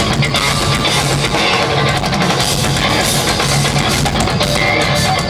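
Live instrumental progressive metal from a band in concert: eight-string electric guitars and a drum kit playing loud and steady without a break, heard from the audience.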